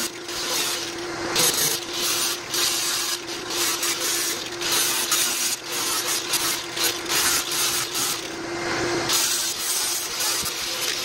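Electric power sander running on fiberglass, grinding down the hull's patches and holes. Its motor hums at a steady pitch while the scraping of the pad on the glass swells and fades as it is worked over the surface.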